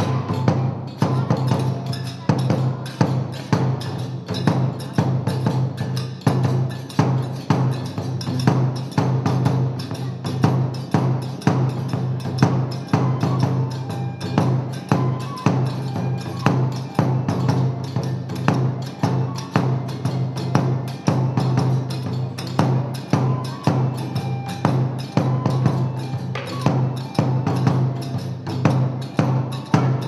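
Kagura music for a gongen-mai lion dance: a taiko drum and hand cymbals beating a fast, even rhythm, about three to four strokes a second.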